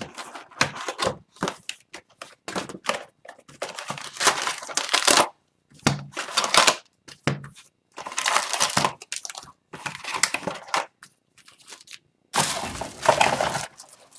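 A shrink-wrapped hockey card box being unwrapped and opened: the wrapper slit with a box cutter, then torn and crumpled, the cardboard box opened and the card packs lifted out. It is heard as irregular crinkling, tearing and rustling of plastic and cardboard, with a longer burst near the end.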